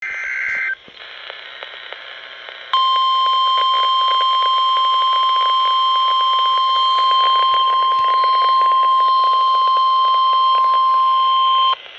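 NOAA Weather Radio emergency alert heard through a weather radio's speaker: less than a second of warbling SAME data tones, then a couple of seconds of static, then the steady 1050 Hz warning alarm tone for about nine seconds, cutting off suddenly. It is the alert that comes before a severe thunderstorm warning.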